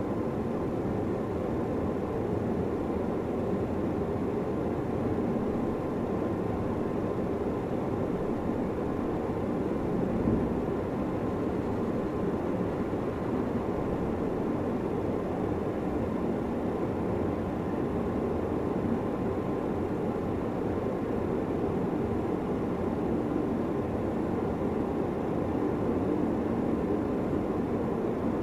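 Steady low rumbling noise with a faint steady hum, unchanging throughout and without distinct strokes or rhythm.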